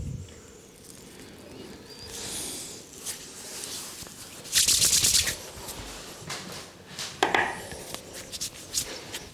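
Hands rubbing and brushing through hair and over the scalp close to the microphone during a head massage, with a louder rasping rub about halfway and several short sharp clicks near the end.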